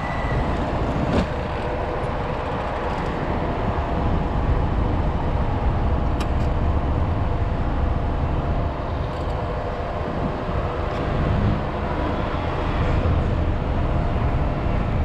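City road traffic at a junction: engines running and vehicles moving past, a steady rumble with no sharp events.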